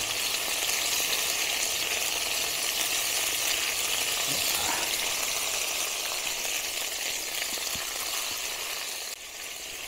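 Fern shoots stir-frying in hot oil in a metal wok: a steady sizzle as they are turned with a plastic spatula, easing off about nine seconds in.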